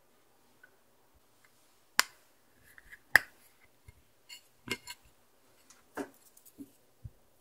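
Clicks and taps of small plastic makeup containers being handled, including an eyeshadow compact's hinged lid snapped open. The two loudest clicks come about two and three seconds in, followed by a string of lighter taps.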